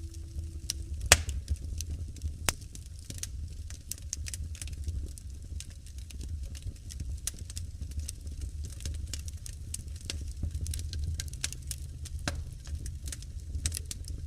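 Wood fire crackling in a fireplace: scattered sharp pops and snaps over a steady low rumble of the flames, with a louder pop about a second in.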